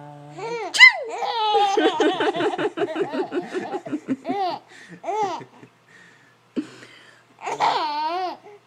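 An adult's drawn-out "ah... ah..." ends in a loud "achoo!" sneeze about a second in. A young child's long bout of belly laughter follows: rapid, high-pitched peals for about three seconds, then a few single laughs and a wavering high squeal of laughter near the end.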